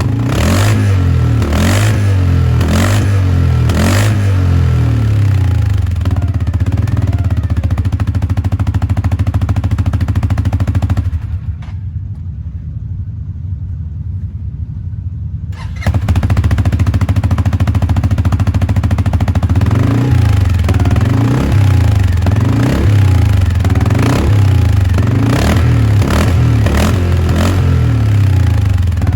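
CFMOTO CForce 450L ATV's single-cylinder engine running, revved in a series of short blips near the start and again in the later part. For a few seconds in the middle the sound turns quieter and muffled.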